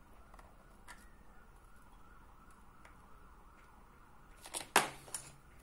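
Faint handling clicks and taps on a lithium battery pack being probed for cell voltages, with one sharp click near the end, over low steady background noise.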